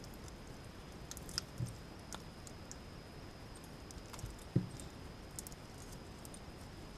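Faint handling sounds of a cable's stripped end being worked by hand with side cutters: scattered small clicks and crinkles of tape, foil and wire braid, with one louder knock about four and a half seconds in.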